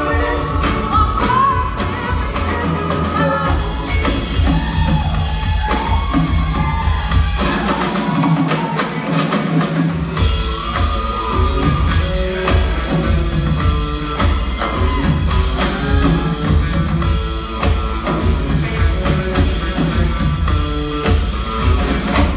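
Live band playing: a woman singing over the band in the first few seconds, then an instrumental passage with drum kit, electric guitar and upright bass. The bass end drops out for about two seconds around eight seconds in, then the full band comes back in.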